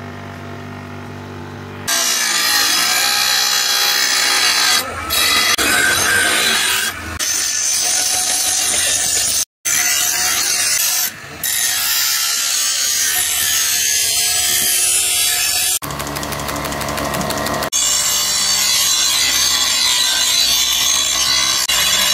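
Power tool working on the sword, most likely grinding: a steady motor hum for the first two seconds, then continuous harsh grinding broken by a few short pauses.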